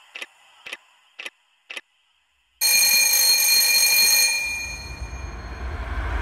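A clock ticking, four ticks about half a second apart, then about two and a half seconds in a loud alarm rings out suddenly in several steady high tones. After a couple of seconds the ringing fades into a low rumble that builds toward the end.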